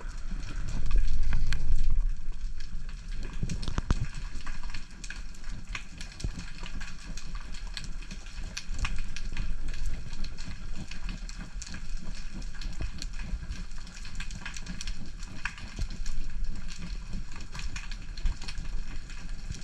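Underwater reef ambience: a dense, steady crackle of tiny clicks. Under it runs a low rush of water moving past the microphone, loudest about a second in.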